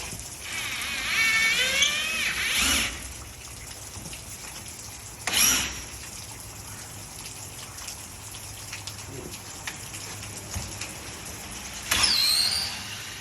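Steady rain falling, broken three times by short whining sounds: a wavering whine of about two seconds near the start, a brief burst about five seconds in, and a falling whine near the end.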